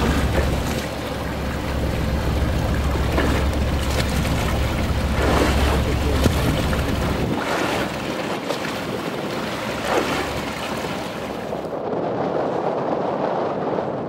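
Wind buffeting the microphone over choppy waves and water splashing around a boat. The heavy low wind rumble drops away about seven seconds in, leaving the wash of water.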